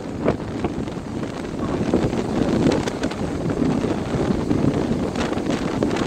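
Strong wind blowing across the microphone in a steady low rumble, with surf breaking on the shore underneath it.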